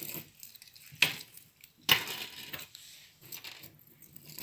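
Gold-coloured metal chain necklaces and bracelets being handled: a few sharp clinks and rustles, the two loudest about a second in and just under two seconds in.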